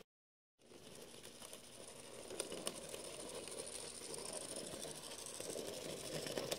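Model train running along the track: the whirr of a small electric locomotive motor with light wheel clatter and a few sharp clicks, coming in after a half-second gap and growing a little louder as the train passes.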